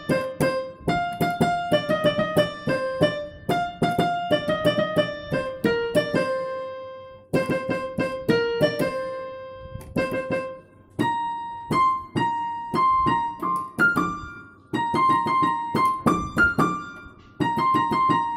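Background piano music: a gentle melody of repeated short phrases with chords, pausing briefly between phrases.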